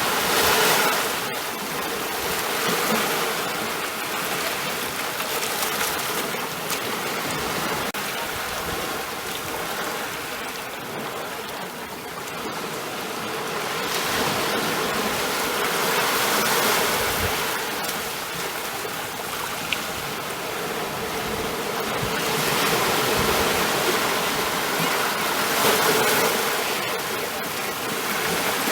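Ocean surf: a steady rush of breaking and washing waves that swells and eases several times, a few seconds apart.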